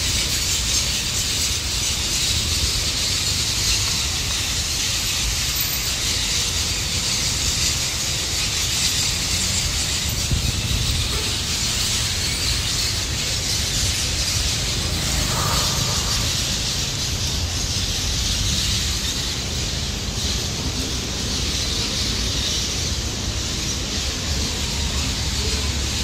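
A loud, steady, high-pitched chirring chorus that goes on without a break, an odd chirping that sounds like a chainsaw, over a low rumble of street traffic.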